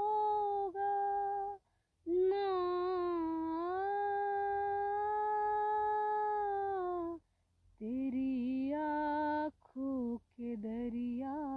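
A voice holding long, steady, sustained notes. One note lasts about five seconds, then comes a drop to lower, wavering notes that slide up and down, with short silent breaks between the phrases.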